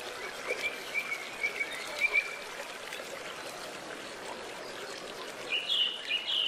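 Short high chirping calls over a steady rushing noise: a few scattered chirps in the first two seconds, then a quicker run of higher chirps near the end.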